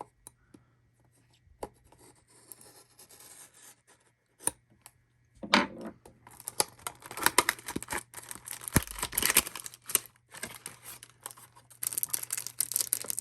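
Trading card packaging being handled and torn open: a few light taps and clicks, then from about five seconds in a run of crisp tearing and rustling of cardboard and pack wrappers.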